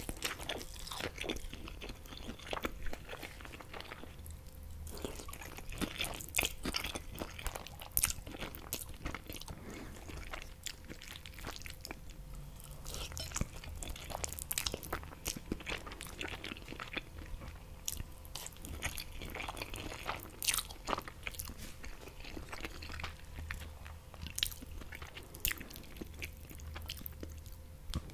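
Close-miked eating: crunchy bites of fried horse mackerel fillet and chewing of green spaghetti, with irregular sharp crunches and mouth clicks throughout.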